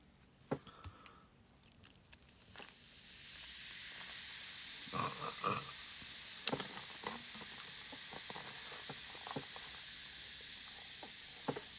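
Pepsi Zero poured from a plastic bottle into a cup of ice, the carbonation fizzing with a steady hiss that sets in about two and a half seconds in. A few light clicks and knocks from the bottle and cup.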